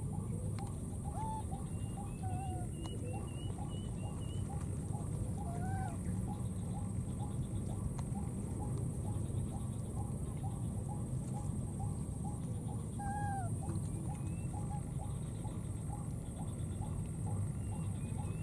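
Steady low outdoor rumble under a small animal call repeating about three times a second, with a few short squeaky chirps rising and falling, the clearest about six and thirteen seconds in.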